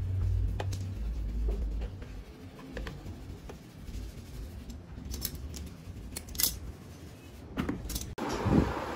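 Scattered light clicks and taps as rubber edge trim is worked onto the rim of a fibreglass helmet shell by hand, with a sharper cluster of clicks near the end. A low hum dies away in the first two seconds.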